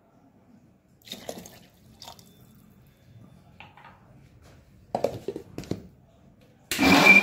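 A few light clatters of a steel mixer-grinder jar and its lid being handled. Near the end the mixer grinder's motor switches on and runs at a loud, steady whir, blending custard apple pulp with milk.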